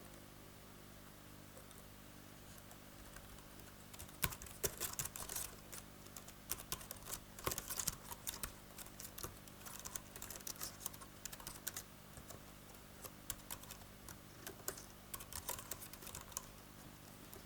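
Typing on an A4Tech Fstyler FX55 keyboard: quick, uneven runs of soft key clicks that start about four seconds in and carry on almost to the end.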